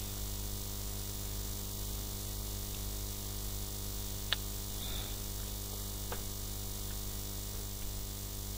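Steady electrical hum and hiss from the recording setup, with one sharp click about four seconds in and a fainter click a couple of seconds later.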